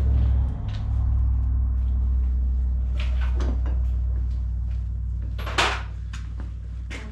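A steady low machine hum, with scattered clicks and knocks of tools on metal parts and one short loud hiss-like burst about five and a half seconds in.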